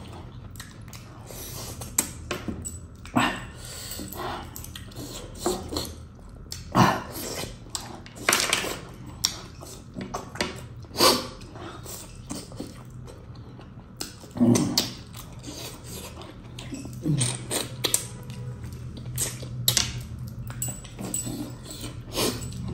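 Close-miked eating: a man gnawing and chewing mutton off a leg bone, with wet smacking, slurping and finger-sucking sounds at irregular intervals.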